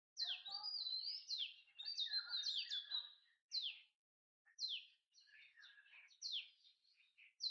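Birds calling: a series of sharp high notes, each sliding down in pitch, repeated about once a second, with busier twittering and warbling during the first three seconds.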